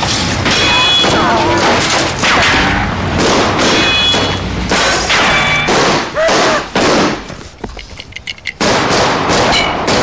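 Gunfire from several guns in a shootout, shots coming thick and overlapping with shouting. Near the end the firing thins to a few separate shots before picking up again.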